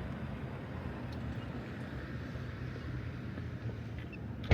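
Steady low rumble of a car engine running. A single sharp knock comes at the very end.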